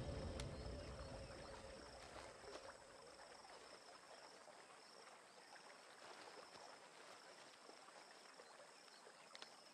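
Background music fading out over the first couple of seconds, then near silence with faint insects chirping, a high pulsing trill repeating over and over.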